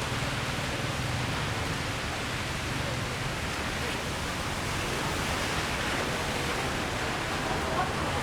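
Steady rain falling on a city street, an even hiss without breaks.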